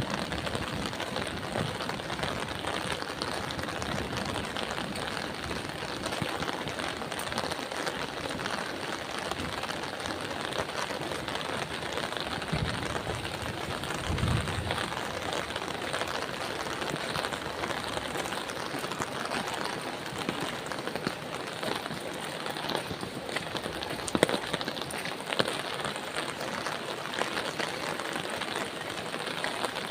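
Steady rain falling on surfaces, an even patter with scattered sharper drop ticks. A brief low thump comes about halfway through.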